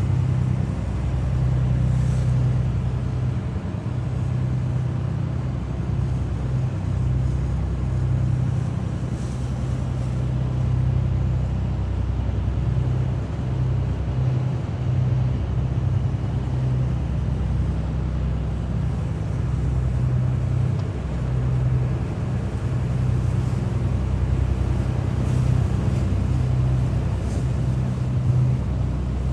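Lifeboat's engine running steadily, a low even drone.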